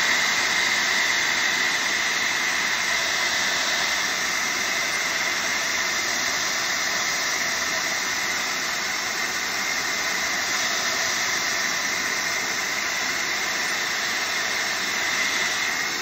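Handheld hot-air craft dryer running steadily, a loud rush of air with a high whine, drying wet Mod Podge glue.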